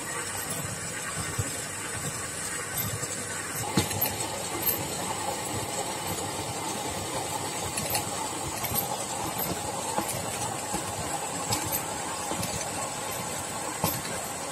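Electric Krot cultivator with Tselina tiller tines running and churning soil: a steady motor whine over the gritty scraping of earth, with a stronger whine joining about four seconds in. Several sharp knocks stand out, about four of them spread through the run.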